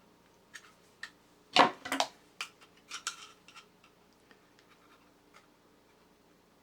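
Clicks and clattering knocks of small hard parts of a tin toy robot being handled and worked by hand, loudest in a short clatter about a second and a half in, then a few lighter clicks.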